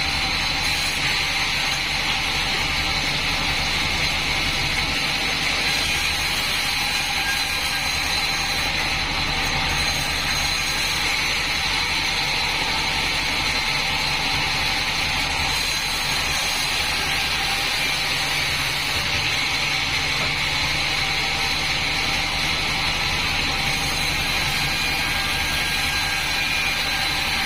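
Band sawmill running steadily: a continuous machine drone with a steady high whine.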